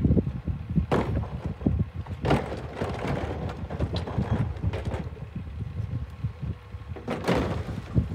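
Rear-loader garbage truck idling while a plastic wheeled recycling cart is rolled up and hooked onto its rear cart tipper, with rattling and clunks of the cart and lift mechanism, a louder clunk near the end as the cart is lifted.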